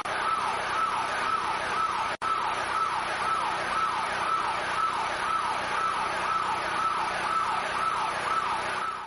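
A siren wailing in quick repeated falling sweeps, about one and a half a second, over a steady high tone, with a momentary break in the sound about two seconds in.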